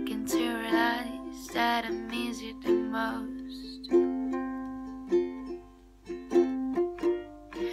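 A Makala ukulele being strummed in a steady rhythm, with a voice singing over it during the first three seconds or so; from about four seconds in the ukulele plays alone.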